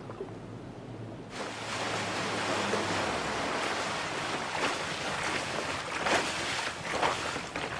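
Sea water splashing and waves slapping, with wind, cutting in suddenly about a second and a half in after a low hum.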